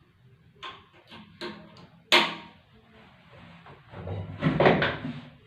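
A few light knocks, then one sharp bang about two seconds in, and a longer rattling clatter near the end, like hard objects being handled and set down.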